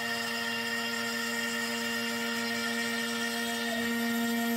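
NymoLabs NBX-5040 CNC router's spindle running at 12,000 rpm, a steady whine with the noise of the bit milling a shallow 1/16-inch pass through MDF. It gets a little louder near the end.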